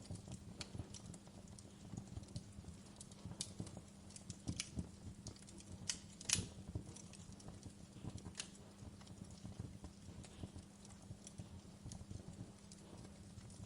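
Wood fire in a fireplace crackling, with irregular sharp pops and snaps, the loudest about six seconds in, over a low steady hum.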